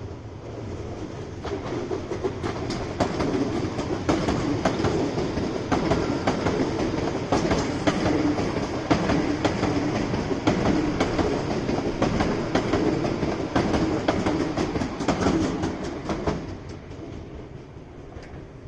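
Electric commuter train passing on the Hankyu Senri Line, its wheels clicking over rail joints in a rapid run of clicks. It grows louder over the first few seconds, holds, then fades quickly from about sixteen seconds in as the train moves away.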